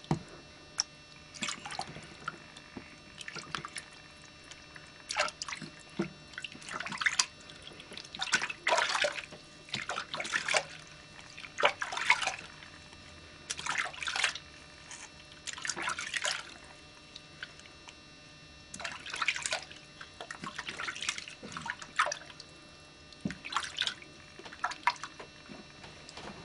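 Bath water splashing and trickling in a plastic baby bathtub as a hand washes a baby, in short irregular bursts every second or two.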